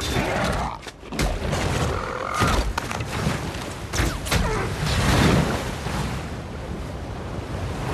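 Film battle sound effects: several sharp hits and thuds over a low rumble, giving way in the second half to the steady rush of whitewater rapids.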